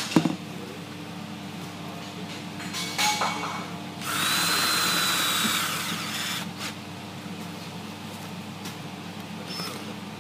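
Hitachi cordless drill-driver running for about two seconds, driving a screw through a sliding-door roller bracket into the door frame. A few sharp knocks at the start.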